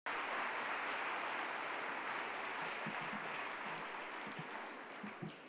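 Large audience applauding, the clapping thinning and dying away over the last couple of seconds.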